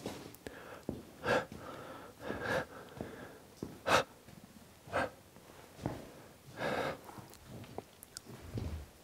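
A person breathing heavily in short, uneven breaths, about five loud ones over several seconds.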